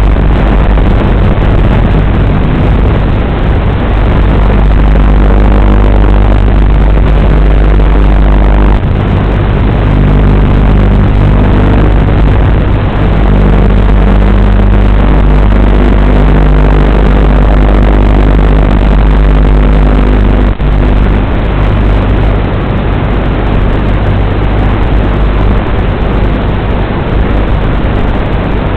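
WLToys 12418 electric RC car running, heard loud and rough through its onboard recording, with a heavy low rumble and steady motor and drivetrain tones that shift in pitch a couple of times.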